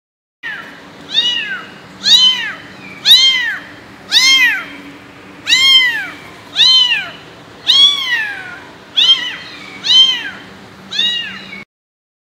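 Kitten meowing loudly over and over, about ten high-pitched calls roughly a second apart, each rising and then falling in pitch.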